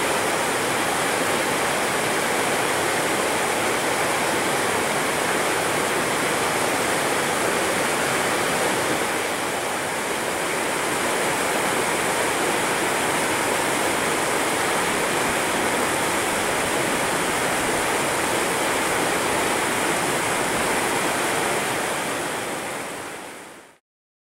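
Burnt River rushing over rapids: a steady, dense rush of fast whitewater that fades out to silence near the end.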